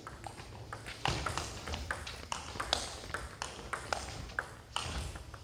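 Table tennis rally: the ball clicking sharply off the bats and the table in quick, irregular succession, several hits a second.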